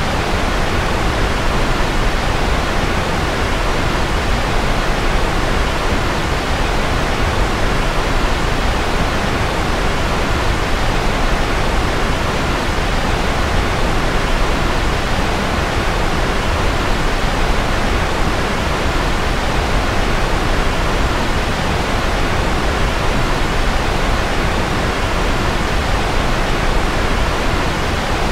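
Steady white-noise sleep track: an even, unchanging hiss with no pitch or rhythm, fuller in the lows and mids than in the highs.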